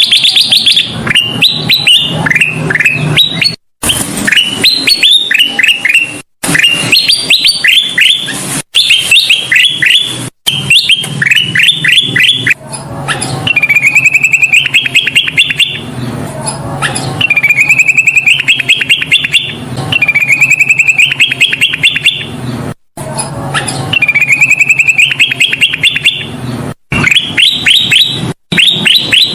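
Kutilang emas (a bulbul) singing loudly in bursts of rapid chattering notes, some phrases running down in pitch and others rising as fast trills. A low steady hum sits underneath, and the song breaks off in several brief dead-silent gaps.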